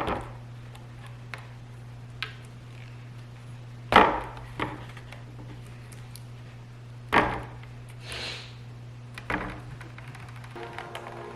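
Scattered hard knocks and clatters: four louder ones a few seconds apart and a few fainter ticks, over a steady low hum.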